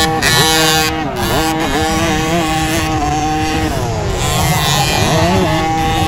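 Several 50cc motocross bikes' engines revving up and down as they race past, their pitches rising and falling through the gears and overlapping.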